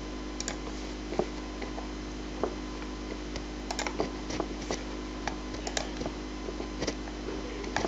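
Irregular clicks and taps of a computer keyboard and mouse, about a dozen spread unevenly, over a steady low electrical hum.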